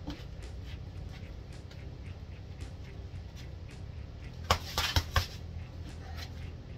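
Gloved fists striking a hanging punching bag in a quick combination of about four punches, about four and a half seconds in, over a steady low hum.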